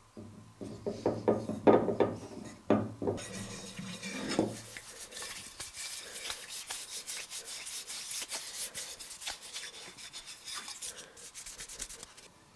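Hands handling a cleaver with a few irregular knocks at first. Then, from about three seconds in until just before the end, a fast, steady, scratchy rubbing of palms and fingers working paste wax into the cleaver's mahogany handle scales.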